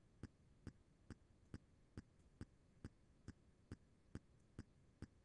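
Faint ticking, evenly paced at a little over two ticks a second.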